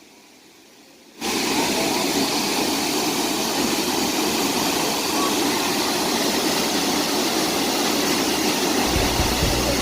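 Steady roar of the Soochipara waterfall's falling water, cutting in suddenly about a second in after a quiet start. A low rumble joins it near the end.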